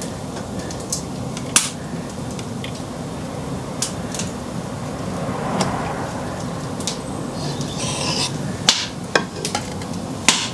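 Sharp metallic clicks and taps from handling the aluminium weight mould and locking pliers while pouring molten lead from the melting pot, scattered over a steady low background hum; the clicks come thickest near the end.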